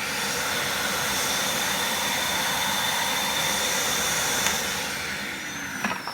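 Titan TTB774VAC 1300 W wet and dry vacuum cleaner running at full speed, a loud, noisy rush of air with a steady high whine. Near the end it is switched off and winds down, its pitch falling, with a few plastic clicks.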